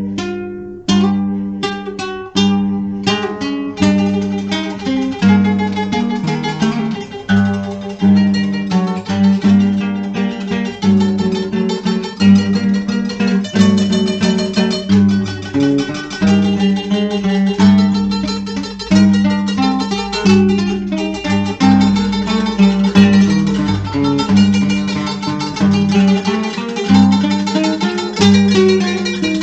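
Dark folk music on plucked acoustic guitar. A few separate plucked notes open, then the picking thickens into a dense run over a steady low drone.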